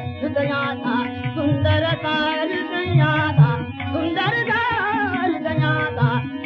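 A Marathi stage song (natya sangeet) being sung in a highly ornamented style, the voice wavering and gliding around each note. Under it run a steady held accompanying note and repeated drum strokes.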